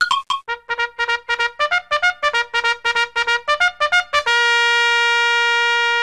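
Intro music: a quick run of short staccato notes, then one long held note from about four seconds in.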